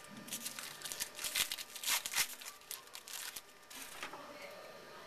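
A baseball card pack wrapper being torn open and crinkled: a run of rustling crinkles lasting about three and a half seconds, loudest around the middle, then stopping.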